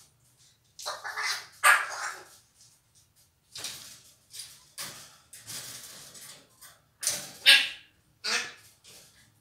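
African grey parrot calling in several separate bursts of squawks and vocalisations. The loudest calls come about two seconds in and again about seven and a half seconds in.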